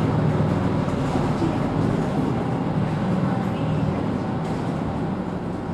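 Mercedes-Benz Citaro C2 city bus under way, its diesel engine running with a steady low rumble and road noise, heard from inside the cabin; the level eases a little toward the end.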